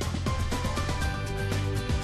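Background music with a steady beat and sustained notes over a heavy bass.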